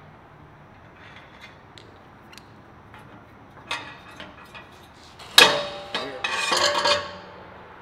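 Steel frame tubing being handled and worked loose: light clicks and taps, a clank, then a sharp metallic clang about five and a half seconds in, followed by a rattling, ringing clatter of the steel.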